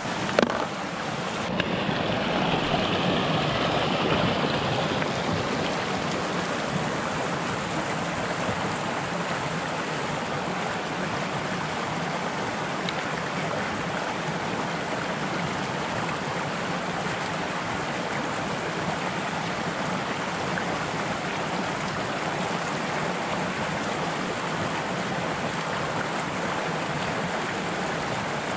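Shallow mountain stream running over stones and gravel, a steady rushing. There is a single brief knock just after the start.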